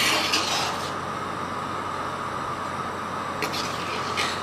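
Large pot of spiced water at a rolling boil, bubbling steadily, as a slotted metal spoon stirs freshly added rice through it. There is a splashing swirl at the start and two short scrapes of the spoon on the pot near the end.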